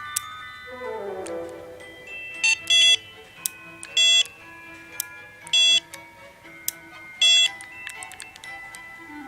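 Background music with light melodic notes, cut through four times by a loud, short, buzzy electronic beep about every one and a half seconds.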